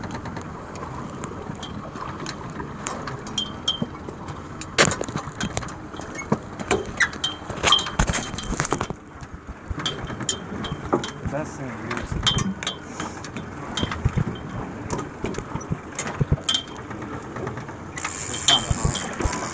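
Fishing reel clicking in short irregular runs as it is cranked against a hooked king salmon, with a steady hiss of wind and water throughout.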